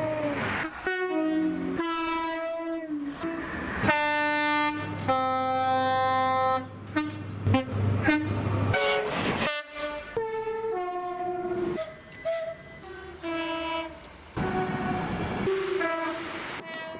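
A rapid series of British train horns, one blast after another with abrupt cuts between them, several stepping between a high and a low note as two-tone horns do. Train running noise fills the gaps.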